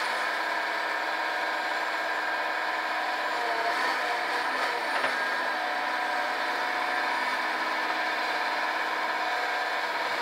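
Cat 523B tracked feller buncher's diesel engine and hydraulics running steadily as the boom moves the felling head.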